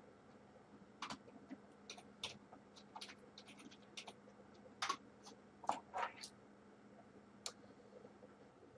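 Computer keyboard typing: faint, irregular key clicks, spaced further apart in the second half.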